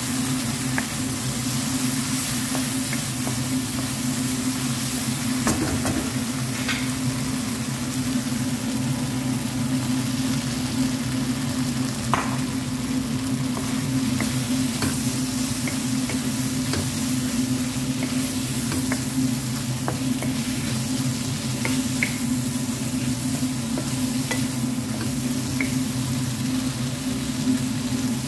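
Chicken, onion and green pepper sizzling in a hot non-stick wok as a wooden spatula stirs and scrapes them, with occasional light knocks of the spatula on the pan. A steady low hum runs underneath.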